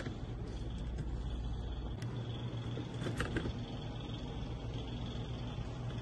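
Steady low hum of room noise, with a deeper rumble that drops away about two seconds in and a few faint clicks and light handling knocks.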